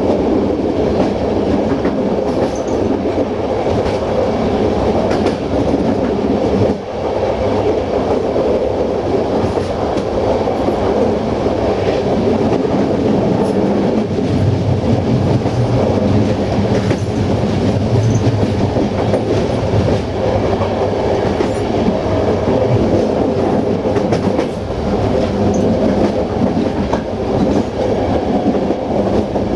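Passenger train coaches running along the track: a steady loud rumble of wheels on rails, with the clickety-clack of the wheels passing over rail joints.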